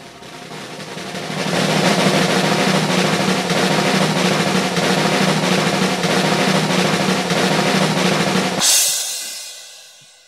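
A snare drum roll that swells over the first couple of seconds and holds loud and steady, ending about eight and a half seconds in on a cymbal crash that rings away.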